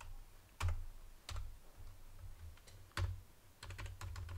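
Computer keyboard keystrokes, scattered singly about a second apart, then a quick run of four or five strokes about three and a half seconds in.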